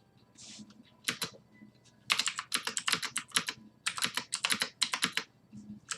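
Fast typing on a computer keyboard. A couple of keystrokes come about a second in, then a rapid run of keys lasts about three seconds, with a short pause near the end before the typing resumes.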